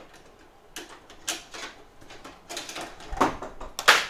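Irregular clicks and light knocks of small hard objects being handled on a repair bench, the loudest near the end.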